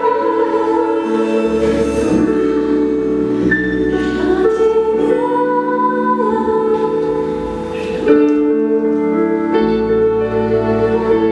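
Music with sustained voices or instruments in slow held chords, changing chord about every second or two, with a fresh swell about eight seconds in.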